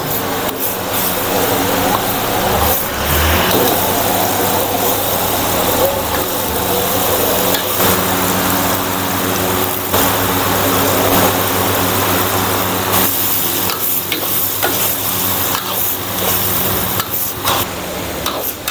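Chilli sambal sizzling as it fries in a wok, with a metal ladle scraping and clinking against the wok as it is stirred. Underneath runs a steady low mechanical hum.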